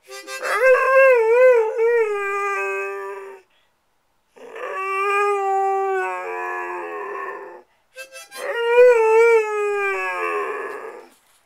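A dog howling along to a harmonica: three long howls, each about three seconds, with short breaks between them, the first and last wavering up and down in pitch over held harmonica notes.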